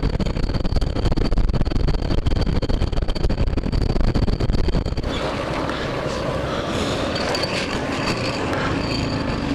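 Motorcycle riding on a highway: uneven rumbling wind and road noise with the engine underneath. About halfway through the low rumble eases and a steadier hiss takes over.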